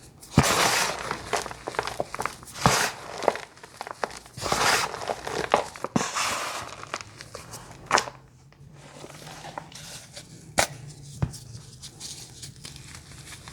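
Bursts of crunching and crinkling from crunchy material being broken and handled, with a few sharp snaps. The crunching is dense in the first half and thins out to scattered ticks later.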